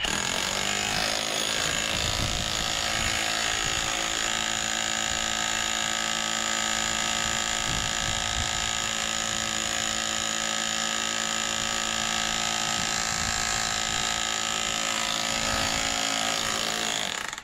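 Rotary hammer drill running steadily under load, driving a long bit down into the soil, with a constant motor whine.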